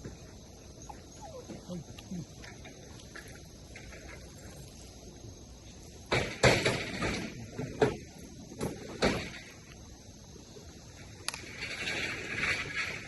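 A few sudden loud knocks or clatters about halfway through, followed near the end by a rustling, scraping noise.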